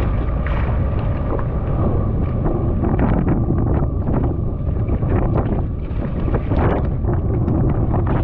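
Wind buffeting the microphone in a heavy, low rumble, with choppy waves slapping and splashing against a jet ski's hull in short irregular hits.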